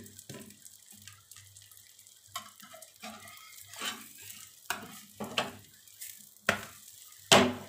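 Egg omelette with a chapati pressed onto it sizzling quietly in a frying pan, with a spatula scraping and knocking against the pan now and then. The loudest knock comes near the end.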